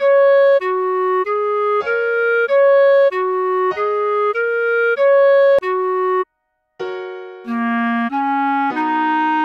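Solo clarinet playing a melody as a run of separate, evenly timed notes about 0.6 s each, a four-note figure repeated several times. The notes break off for about half a second around six seconds in, then go on with a lower rising phrase.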